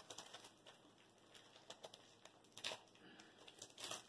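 Faint crinkles of a plastic biscuit wrapper being handled and opened, a few short rustles spread out over near-quiet room tone.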